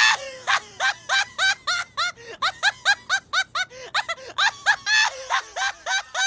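A cartoon character's high-pitched voice laughing mockingly, a long run of short, repeated 'ha' syllables at about three a second.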